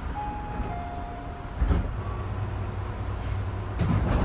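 Tobu 50050 series train's passenger doors and door chime: two falling chime tones, then a dull thump of the sliding doors about two seconds in and a heavier one near the end, over the car's steady low hum.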